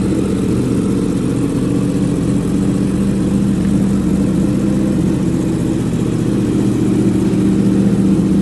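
Motorcycle engine idling steadily through an aftermarket Akrapovic Lorenzo muffler, with a deep, even exhaust note.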